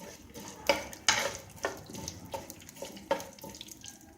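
Urad dal, mustard and cumin seeds frying in hot oil in a metal pan for a tempering, with a dozen or so sharp, irregular clinks and pops that grow sparser and fainter toward the end.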